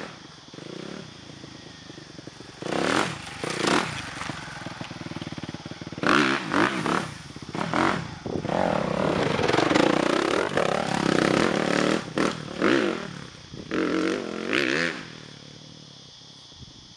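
Suzuki RM-Z250 four-stroke single-cylinder dirt bike engine revving in repeated bursts, its pitch rising and falling with the throttle. It is loudest through the middle and dies away near the end.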